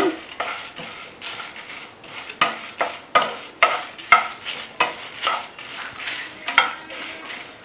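Wooden spatula stirring and scraping dry whole spices (dried red chillies, cinnamon sticks, coriander and cumin seeds, peppercorns) around a granite-coated nonstick frying pan, in repeated strokes about one or two a second. The spices rattle and rustle as they dry-roast on a low flame until they darken and turn fragrant.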